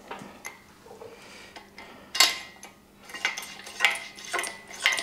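Steel parts of a shop crane clinking and knocking as the hydraulic cylinder is worked into its mounting bracket: a string of sharp metallic clanks, the loudest about two seconds in, some ringing briefly.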